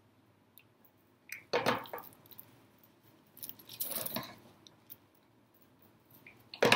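Plastic bag strips crinkling and rustling in three short bursts as they are handled, the last one sharper and louder, near the end.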